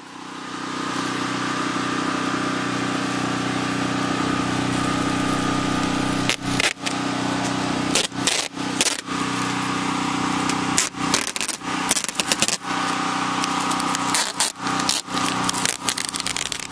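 Plastic stretch wrap being pulled off its roll: a steady pitched drone with crackling, breaking off briefly several times as the pull stops and starts.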